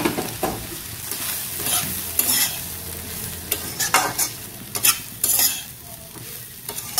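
Metal spatula stirring and scraping dry semolina into vegetables frying in a kadai, in irregular strokes with a sharp knock at the start and several louder scrapes.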